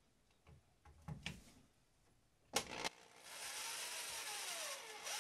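Cordless drill driving a self-tapping truss screw through plexiglass into the wooden crib rail. It starts about three seconds in, after two sharp clicks, as a steady motor whine. The pitch sinks as the screw goes in, then rises again near the end.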